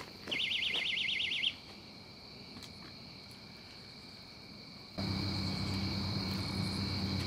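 Night insects such as crickets trilling steadily on two high, even tones, with a brief fast warbling trill in the first second and a half. From about five seconds in, a steady low hum joins.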